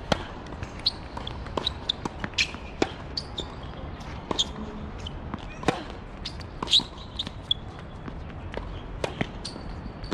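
Tennis rally on a hard court: a tennis ball struck by rackets and bouncing on the court, heard as a series of sharp pops roughly a second apart.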